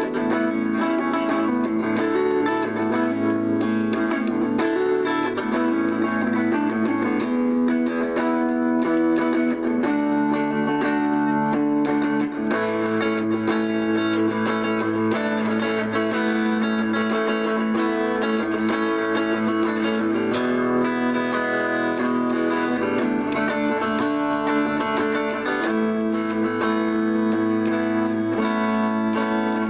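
Clean-toned electric guitar played solo in a slow, easy-listening light-jazz style, with sustained chords and melody notes ringing together and the harmony shifting every few seconds.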